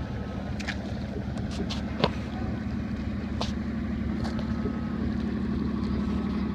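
Motorboat engine running steadily under way on the river, with a few sharp clicks and knocks on top, the loudest about two seconds in.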